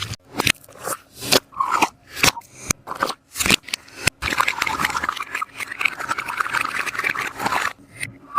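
Sticky taba squishy being squeezed and pressed by hand. Its tacky surface gives a run of sharp crackles and sticky peeling snaps, then a longer continuous crinkling stretch through the second half.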